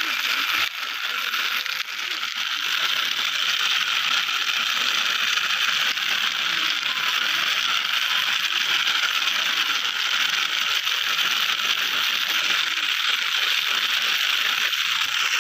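Small plastic toy scooter's gear mechanism running as it is pushed along, a steady, dense ratcheting whirr.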